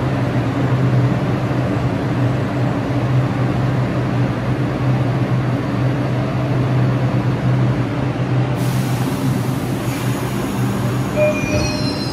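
New York City subway train at a station platform: a steady low drone and rumble. A hiss comes in about two-thirds through, and short high squeals follow near the end.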